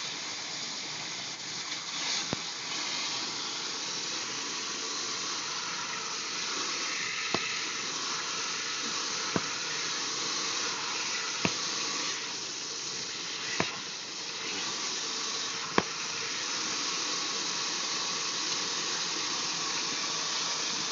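Steady rushing hiss of water gushing from a live, pressurised water line under repair. Sharp clicks cut through it six times, five of them about every two seconds through the middle.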